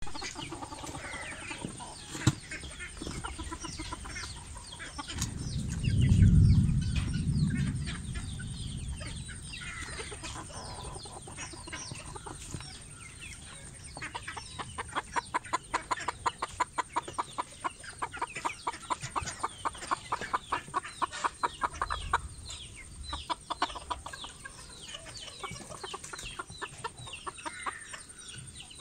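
A flock of silkie chickens clucking and chirping, with a long run of rapid, evenly spaced clucks, about three a second, past the middle. A loud low rumble comes about a fifth of the way in.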